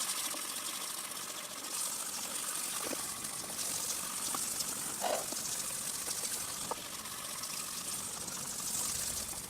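Fine 2000-grit wet sandpaper rubbing over the cured lacquer of an electric guitar body to flatten it: a steady hiss that swells and fades with the strokes, with a few brief faint squeaks.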